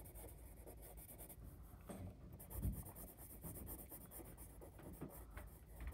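Black marker scratching faintly on paper in short strokes, colouring in the pupils of a drawn cat's eyes.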